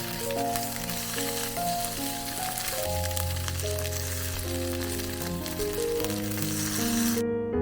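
Food frying in a pan, a steady sizzle that cuts off suddenly near the end.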